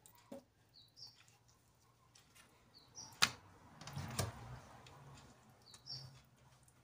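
Knife clicking and scraping on a wooden cutting board while raw chicken is cut, with one sharp knock a little past three seconds in. A small bird chirps in the background, a quick two-note call heard three times.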